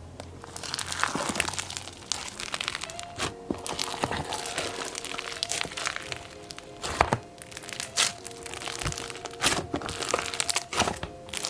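Crunchy foam-bead slime being squeezed and pressed, crackling and popping in many sharp clicks. Quiet background music comes in about three seconds in.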